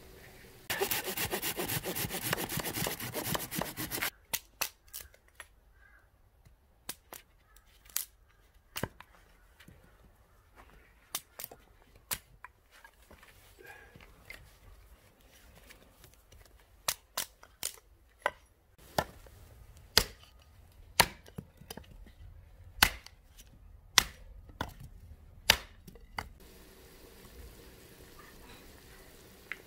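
A hatchet chopping firewood on a tree-stump block: a string of sharp woody cracks and knocks at irregular intervals, roughly one a second, loudest in the second half. Near the start there are about three seconds of loud, dense crackling noise.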